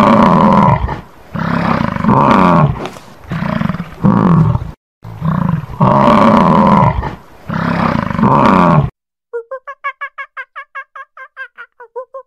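American bison bellowing: a series of deep, loud roars, each about a second long. About nine seconds in they stop and a quicker run of short, evenly spaced calls begins.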